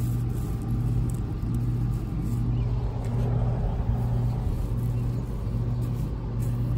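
A machine running with a steady low hum that pulses evenly, a little more than once a second.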